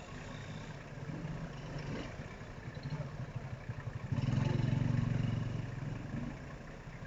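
Low engine-like rumble with a fine, even pulsing. It swells louder about four seconds in for nearly two seconds, then eases back.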